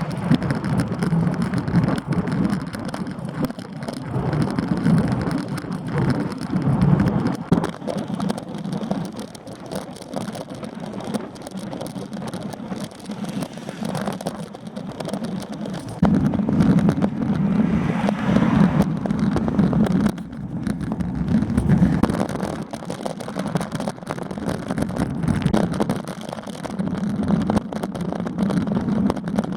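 Wind and road noise from a moving bicycle: a rushing rumble on the microphone that swells and eases every few seconds.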